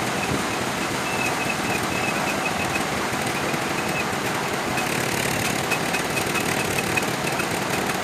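Sawmill machinery running with a steady, dense clatter and a faint high whine that breaks on and off.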